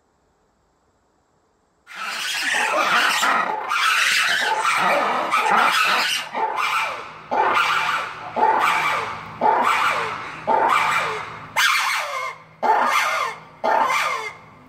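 Red ruffed lemur alarm call, loud and harsh: after a short silence it starts abruptly as one continuous raucous outburst, then breaks into separate shrieks about once a second, each starting sharply and fading away.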